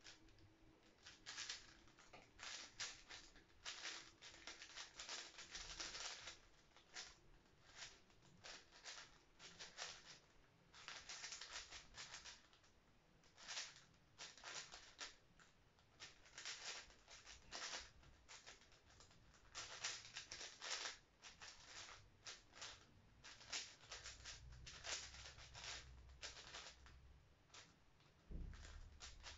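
A 5x5 speed cube being turned rapidly by hand: bursts of quick plastic clicking and clacking as the layers turn, broken by short pauses.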